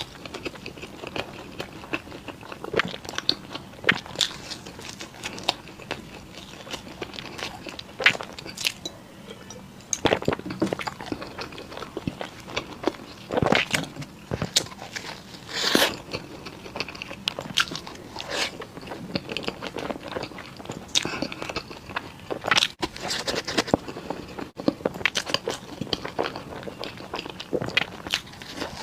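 Close-miked biting and chewing of crisp Chinese pastries: irregular sharp crunches and crackles, with the loudest bites now and then.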